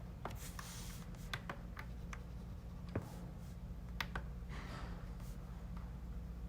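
Faint scattered clicks and a short scratchy stroke from hands working the computer's input device during photo retouching, over a steady low electrical hum.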